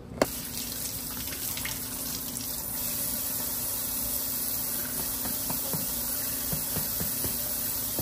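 Kitchen faucet running steadily in spray mode, water splashing over limes rinsed by hand in a stainless steel sink.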